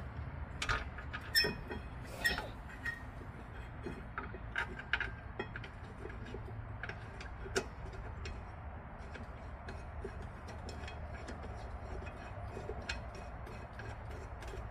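Irregular metallic clicks and clinks, a few with a short ring, as a steel brake caliper bracket and its bolts are fitted by hand, over a steady low background hum.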